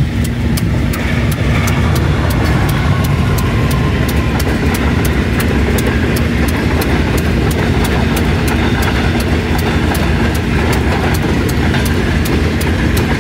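A Pakistan Railways Green Line passenger express passing close by, a diesel locomotive and then its coaches rolling past on the rails: a loud, steady rumble with a low hum and a fast, even ticking.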